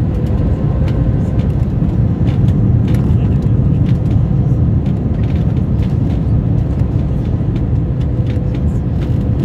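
Steady low rush of engine and airflow noise inside an Airbus A321's cabin on approach with flaps extended, with a faint steady hum over it.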